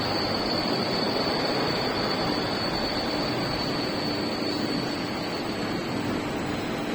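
5K32 gear hobbing machine running steadily, with a faint high whine that fades out about five seconds in.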